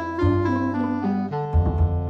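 Background instrumental music with a low bass line and keyboard notes that change every fraction of a second.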